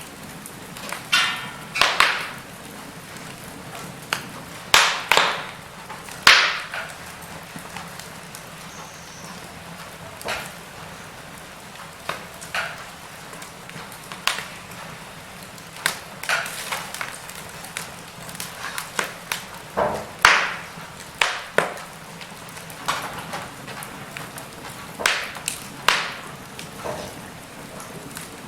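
Wood fire of burning logs crackling: a soft steady hiss with irregular sharp pops and snaps, a few louder ones scattered through.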